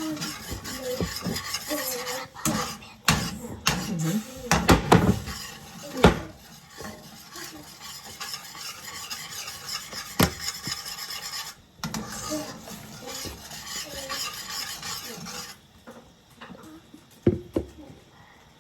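A utensil scraping and stirring scrambled eggs around a frying pan, with a cluster of sharp knocks of the utensil against the pan a few seconds in and another about ten seconds in.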